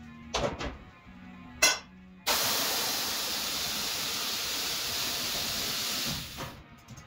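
A few knocks and clicks, then a steady hiss of pressurised spray that starts abruptly about two seconds in, holds for about four seconds and cuts off.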